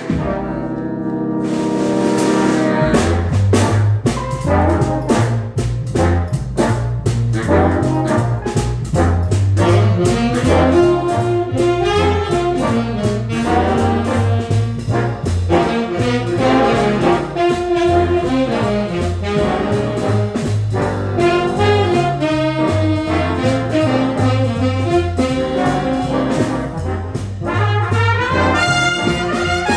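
Recorded band track featuring trumpet and a brass section. It opens on a held brass chord, and a steady beat with a low bass line comes in about three seconds in.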